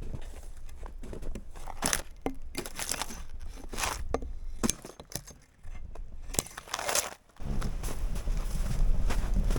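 Crinkling and rustling with scattered sharp clicks and knocks, as of camping gear being handled. About three-quarters of the way through it cuts suddenly to a steady low rumble.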